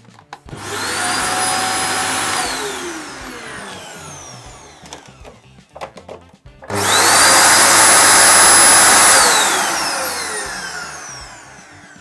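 Replacement motor of a Dyson DC29 vacuum cleaner switched on twice, each time spinning up to a high steady whine for a couple of seconds, then winding down with its pitch falling as it coasts to a stop. The second run is the louder.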